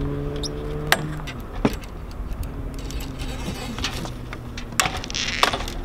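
A few sharp metallic clinks and knocks from a spinnaker pole and its end fittings being handled on a sailboat deck, spread out with two close together near the end, and a short rustle just before the last one.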